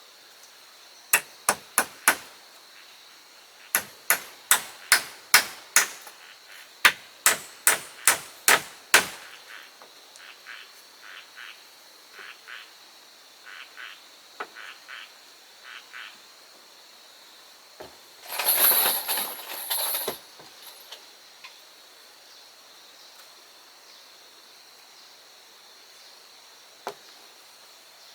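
Sharp strikes on wood in three quick runs of four to six blows, then a series of lighter taps, a brief rustling scrape about two-thirds of the way in, and one last knock near the end. A steady high whine runs underneath.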